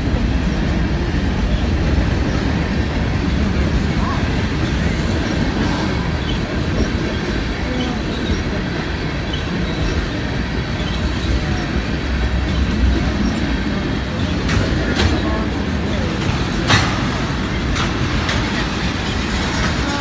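Freight train cars, boxcars and tank cars, rolling past on the rails with a steady low rumble, and a few sharp clanks from the wheels and couplers toward the end.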